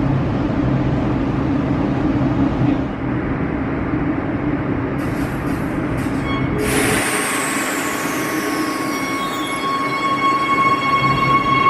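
Warsaw Metro train at the platform: a steady low hum of the train, then about seven seconds in a sudden rush of noise and the whine of its electric traction drive, one high tone falling and several steady high tones building as the train moves along the platform.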